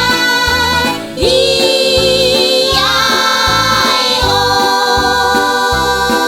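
Children's song music: long held melody notes over a steady bass beat of about two pulses a second, with a short dip about a second in.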